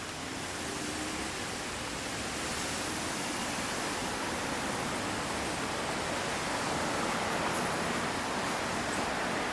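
Steady rushing hiss of outdoor background noise, growing slowly louder.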